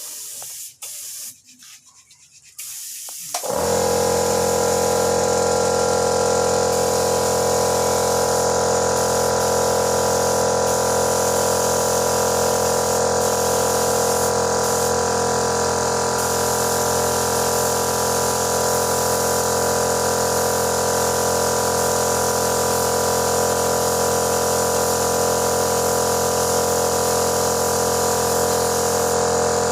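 Small electric motor of spray-painting equipment switching on about three and a half seconds in, then running at a steady, unchanging hum. Before it starts there are a few short, faint hisses.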